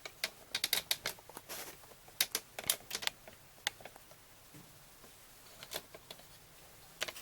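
Quick small clicks and taps of hard objects being handled on a workbench, dense for the first few seconds and then only a few scattered ones.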